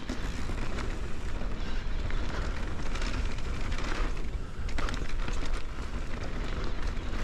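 Ibis Oso e-bike rolling down a dirt and gravel trail: a steady low rumble of wind on the microphone and knobby tyres on dirt, with many small clicks and rattles from grit and bumps.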